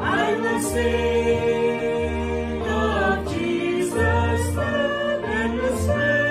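A small mixed group of men's and women's voices singing a hymn together in harmony, holding long notes, over a low bass accompaniment.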